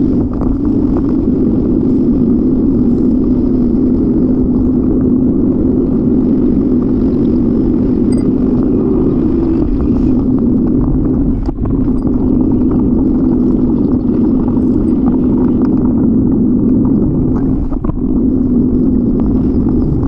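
Steady rumble of wind and road noise picked up by a bicycle-mounted camera while riding, with two brief dips, about eleven and a half and eighteen seconds in.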